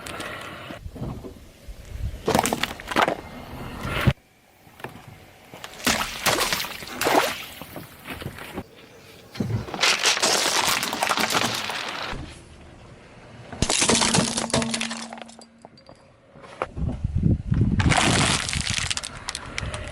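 Brittle objects cracking and breaking as a car's tyres roll over them: a string of separate crunching, breaking bursts, each a second or two long.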